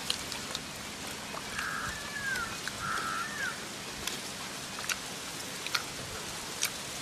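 A bird calls twice, about a second and a half in and again around three seconds, each short call bending in pitch at its end. Under it runs a steady outdoor hiss with a few faint clicks.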